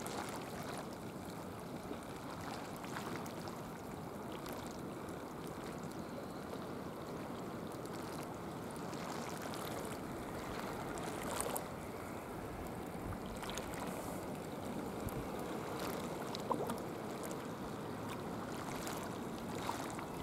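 Sea water lapping and washing, a steady noisy wash with a few short sharp splashes or clicks scattered through.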